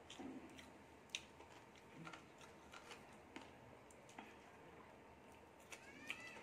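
Faint sounds of eating rice by hand: fingers working rice on a plate and soft mouth clicks and smacks, scattered through, with one sharper click about a second in.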